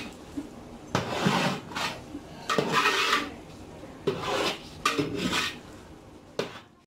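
Long metal ladle scraping and stirring against the inside of a large aluminium cooking pot full of sautéing tomatoes, onions and soya chunks, in repeated rough strokes about once a second.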